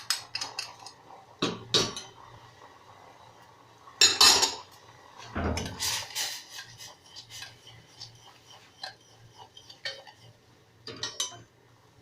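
Spoon stirring and scraping in a cooking pot, clinking and knocking against its sides in scattered strokes, with louder clatters around two, four and six seconds in, as honey is stirred in to dissolve.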